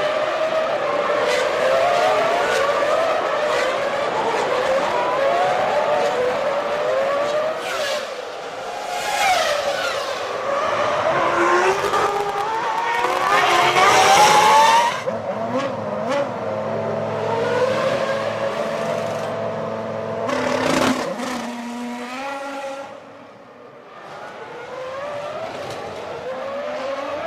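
Formula One cars' 3-litre V10 engines at racing speed, their pitch rising and falling through gear changes. One climbs to a loud peak about fourteen seconds in and cuts off abruptly; the sound dips briefly near the end.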